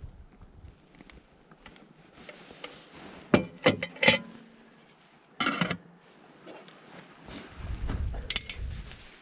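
Clinks and knocks of a cup and utensils being handled, a few sharp strikes about three to four seconds in and a short scrape or rattle after. Near the end comes a low rumble with more clinks.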